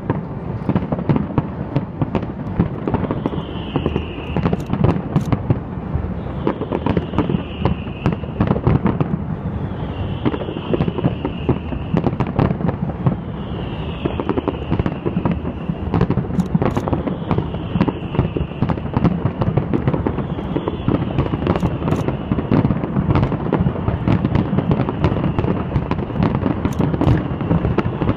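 Fireworks display: aerial shells bursting in a dense, continuous run of bangs and crackling. A high falling tone recurs about every three and a half seconds through it.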